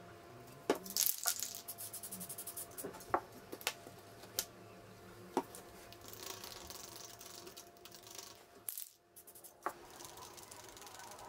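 Light clicks and taps of a stirring stick against a thin plastic pot as epoxy resin is mixed: a quick cluster of clicks about a second in, single sharp taps over the next few seconds, then a stretch of soft scraping.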